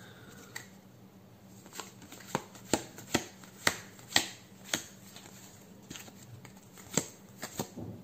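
Trading cards from a freshly opened booster pack being flicked and laid down one at a time: a run of sharp card snaps at an uneven pace, about seven in quick succession and then two more near the end.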